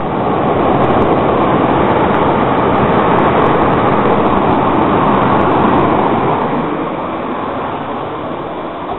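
Floodwater rushing past the building in a loud, steady torrent, easing off a little over the last few seconds.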